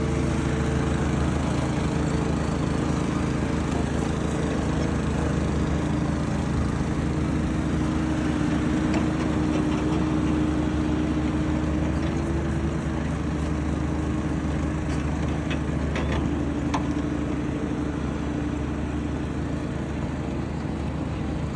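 An engine running steadily with slight shifts in pitch, with a few light clicks or knocks over it.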